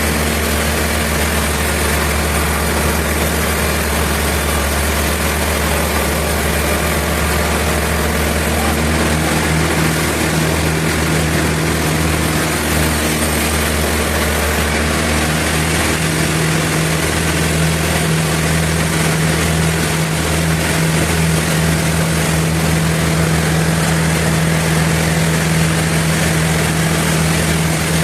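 Sawmill machinery running steadily: a loud engine drone under a broad noise of the saw. The drone's pitch shifts upward between about ten and sixteen seconds in.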